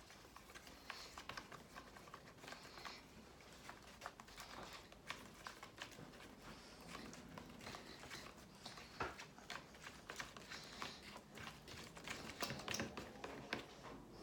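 Glue-and-activator slime being stirred with a stick: faint, irregular clicks and taps as the slime is worked.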